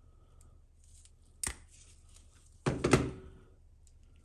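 Pliers and a metal RC shock shaft being handled on a workbench: a sharp click about a second and a half in, then a louder short clatter of knocks.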